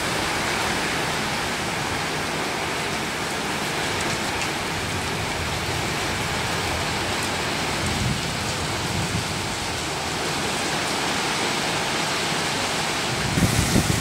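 Heavy rain pouring down in a steady, even hiss. Near the end a louder, uneven low rumble sets in.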